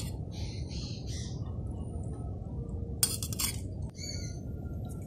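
Steel cooking utensils clinking, with a short metallic clatter about three seconds in, while birds chirp in the background.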